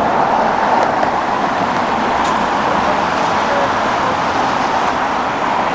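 Steady road traffic noise from cars passing close by on a city street.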